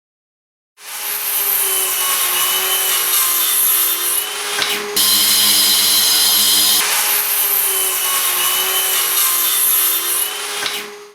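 Metabo AS 18 L PC cordless vacuum cleaner running, a steady motor and fan whine with rushing air. About halfway through there is a click and the tone changes for a couple of seconds before returning to the first sound.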